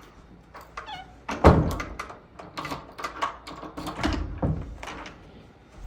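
Door thuds and knocking: a loud thud about a second and a half in, then a string of sharper knocks and bumps, with another heavy thud about four seconds in.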